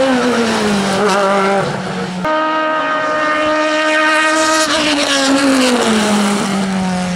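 Sports-prototype race cars at full throttle on a hillclimb, two in turn: the first car's engine note falls in pitch as it goes past, then about two seconds in a second car takes over, its engine held at a high steady pitch before dropping as it passes.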